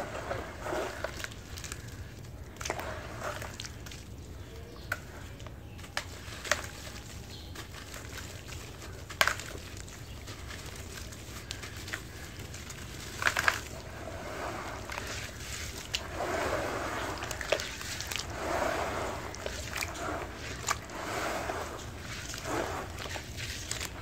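Hands squeezing and crumbling wet red dirt in a bowl of muddy water: sloshing and wet crumbling, with a few sharp clicks and a busier stretch of splashing in the second half.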